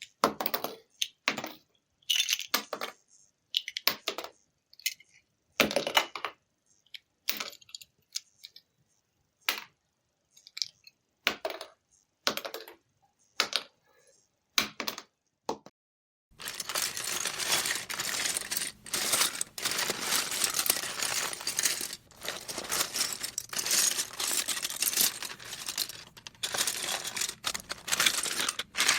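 Plastic Lego bricks clicking and clacking as pieces are handled and snapped together, in separate sharp clicks with pauses between. About sixteen seconds in, this gives way to a continuous dense clatter of many bricks rattling against each other.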